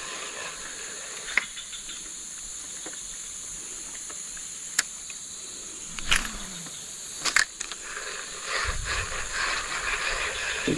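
Steady high-pitched insect chorus, with a few sharp clicks scattered through it. A rougher, rustling noise joins about two seconds before the end.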